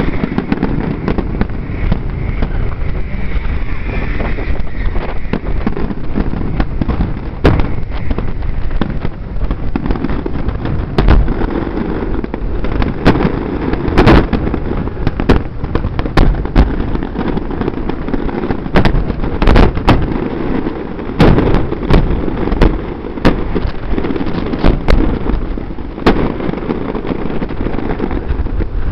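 Aerial fireworks shells bursting in a sustained barrage: many sharp bangs over a continuous low rumble, coming thickest and loudest from about ten seconds in until a few seconds before the end.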